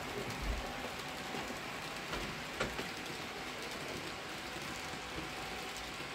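H0-scale model freight train rolling along the layout's track: a steady rushing whirr of wheels and motor, with a few small clicks, the plainest about half a second and two and a half seconds in.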